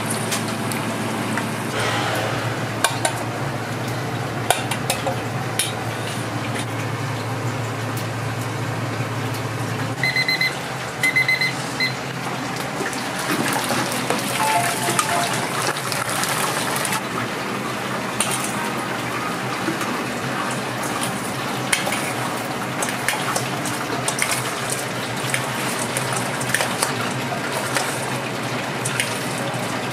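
Chicken deep-frying in a commercial fryer, the oil sizzling and bubbling steadily. About ten seconds in an electronic beeper gives several short beeps. Later there are light metallic clinks of a fry basket and of a spoon in a steel bowl.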